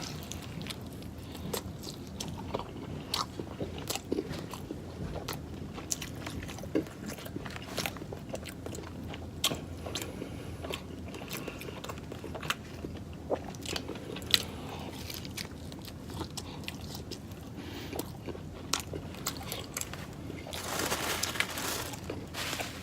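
A person chewing and biting food close to the microphone, with many short crunches and mouth clicks, and a louder stretch of crunching near the end.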